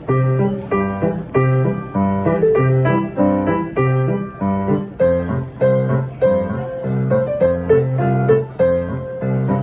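Piano playing an old Taiwanese song, with a melody over a bass that alternates between two low notes on the beat; it starts suddenly.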